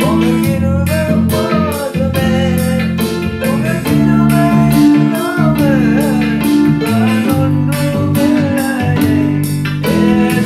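Music: a man singing a Tamil worship song over electronic keyboard accompaniment, with a steady beat.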